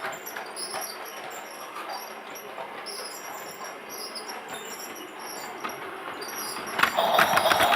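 Battery-powered toy train running, its tune just stopped: a patter of small clicks with faint high squeaks. About seven seconds in, its loud electronic tune or whistle starts up again.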